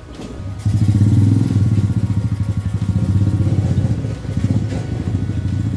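A motor-driven machine runs loudly with a steady, rapid low pulsing, starting abruptly about half a second in.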